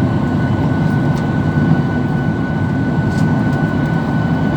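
Cabin noise inside a Boeing 737-800 after landing: a steady rumble of the CFM56 engines and airflow, with a thin, steady whine on top.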